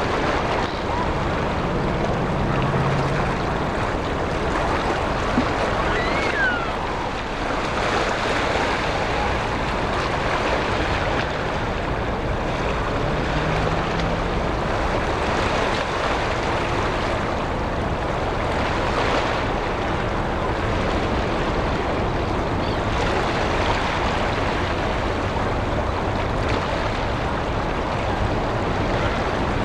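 Steady rushing outdoor noise of wind and water, with wind buffeting the microphone.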